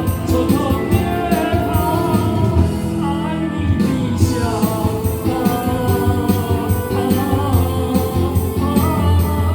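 A singer performing a song over a backing track with a regular beat.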